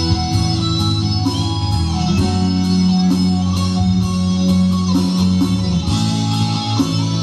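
Live band playing an instrumental passage of a Lao pop song, led by electric guitar over bass and a steady drum beat.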